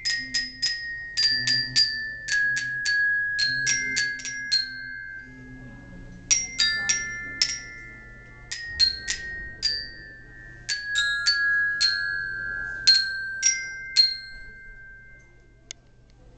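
Two glockenspiels (orchestra bells) played with mallets in a duet: a melody of single struck notes, each ringing on, with a few short pauses. The last notes die away near the end.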